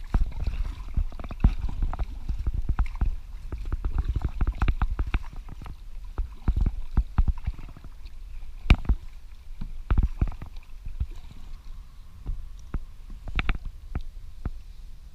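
Kayak on the water, paddled: irregular knocks and clicks over a steady low rumble.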